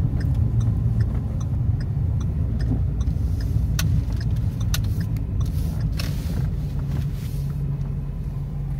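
Car engine idling, heard as a steady low rumble inside the cabin, with faint regular ticking and a few sharp clicks.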